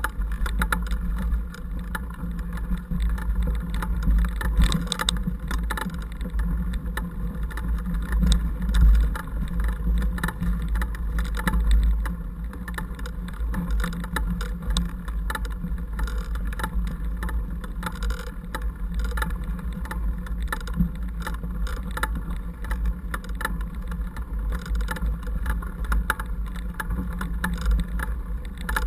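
Mountain bike rolling over a dirt and gravel track, heard through a camera mounted on the bike frame: a steady low rumble of wind and vibration, with frequent small rattles and knocks from the bike over the rough ground.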